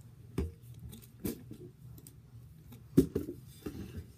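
Several sharp knocks and thumps as a plastic water bottle is handled and moved about; the loudest knock comes about three seconds in.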